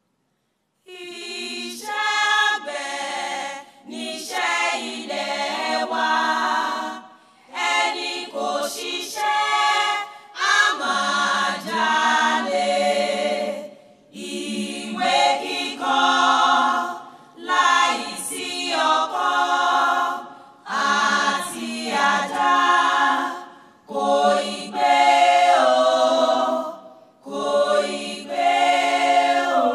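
A small group of women singing together without accompaniment, in short phrases separated by brief pauses.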